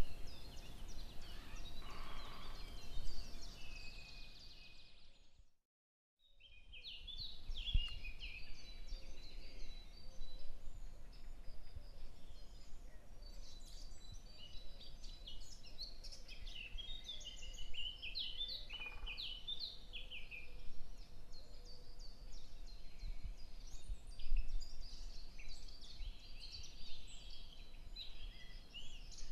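Many small birds chirping and twittering in quick overlapping calls over a low steady background rumble. The sound cuts out for about a second roughly six seconds in, then the chirping resumes.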